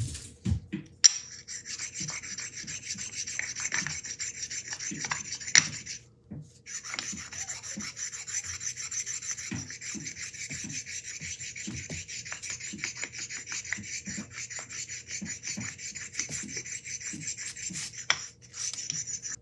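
Abrasive stone rubbed in quick back-and-forth strokes over the shank of a steel Morse taper adapter, a continuous scratchy rasp, stoning down the taper's high spots. It pauses briefly about six seconds in.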